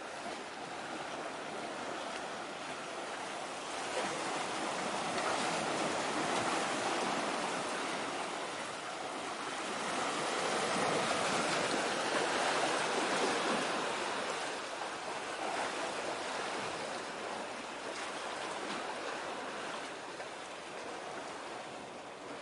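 Sea water rushing and washing, swelling to its loudest in the middle and easing off near the end.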